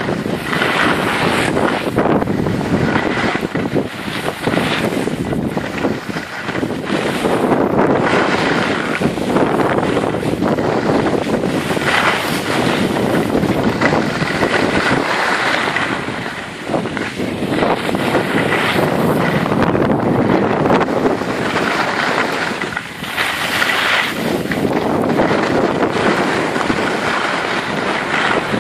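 Wind rushing over the microphone of a camera carried by a moving skier, together with skis scraping and hissing over packed snow. It is loud and continuous and swells and eases every few seconds.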